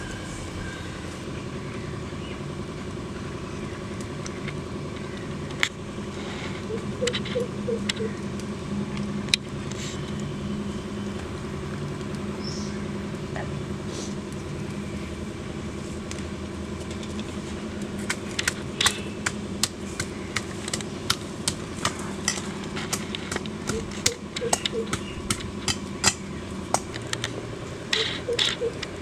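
A steady low hum with scattered sharp clicks and taps, which come much thicker in the last ten seconds or so.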